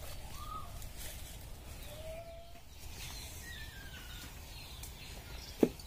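A few brief bird calls, short rising and falling chirps, over a steady low rumble of outdoor background noise. One short, sharp knock near the end.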